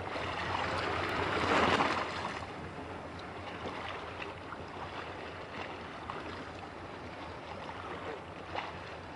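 Choppy sea water washing: a steady rushing noise that swells briefly about a second and a half in, with a few faint clicks.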